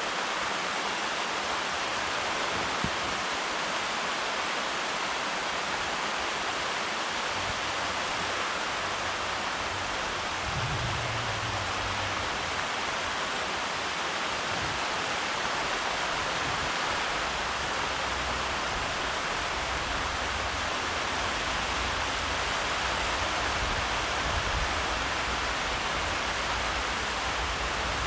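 Steady rainfall, an even unbroken hiss, with a faint low rumble underneath at times.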